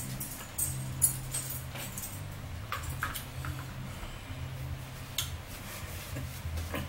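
Table-side handling noises at close range: a plastic cup set down on the table and a paper napkin handled, heard as a scattered series of light clicks and knocks, the sharpest about a second in. A low steady hum runs underneath.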